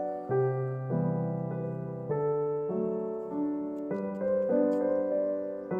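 Background music: a piano or electric keyboard playing a slow run of held notes and chords.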